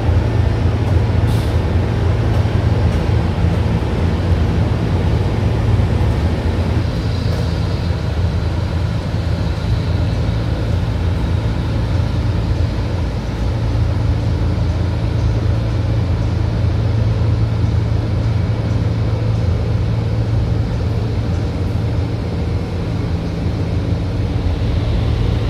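A large engine running steadily: an even, low drone that holds its level throughout.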